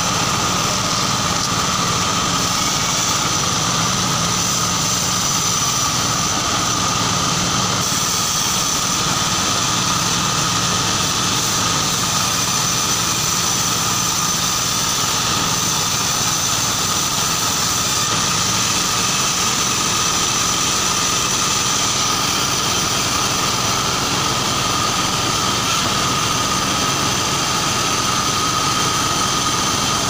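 Band sawmill running steadily as its blade saws lengthwise through a large log, a steady machine drone with a high whine on top.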